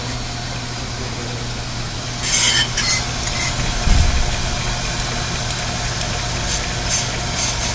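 On-car brake lathe running steadily, spinning the brake rotor and hub, with brief scraping a little over two seconds in as the cutting bits lightly touch the spinning rotor, and a dull thump near four seconds.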